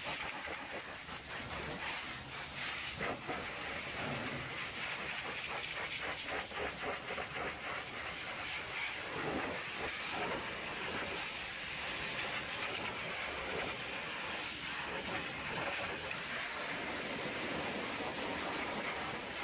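High-pressure washer lance spraying hot water onto a truck's dual wheel rim and tyre: a steady hiss from the jet, with a fluttering spatter as the spray strikes the metal and rubber.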